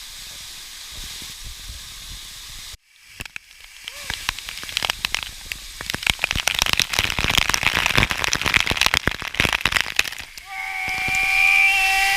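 Waterfall water rushing, first as a steady hiss, then after a sudden cut as close, dense crackling splashes that build in loudness. Near the end a held pitched tone cuts in.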